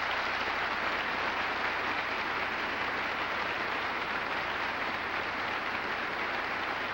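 Large audience applauding in a steady, sustained round of clapping.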